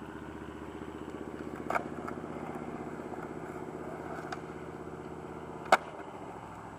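Skateboard on concrete: a clack about two seconds in as the board goes down and is ridden, and a sharp, louder clack near the end. Underneath runs the steady hum of an idling engine, which fades out about six seconds in.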